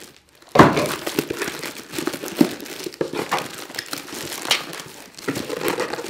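Parcel packaging crinkling and rustling as it is pulled open by hand, in irregular bursts with sharp crackles, the loudest about half a second in.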